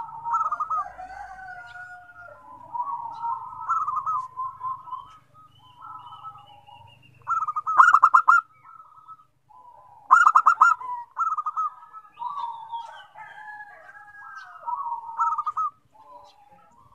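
Zebra doves (perkutut) cooing: strings of soft rolling coos and rapid staccato trills from more than one bird, overlapping and answering one another. The loudest trilled bursts come about eight and ten seconds in.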